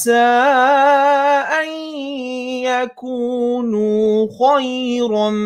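Melodic Quran recitation by a male reciter, in tajweed style, drawing out long held notes with wavering ornaments. A brief breath break comes about three seconds in.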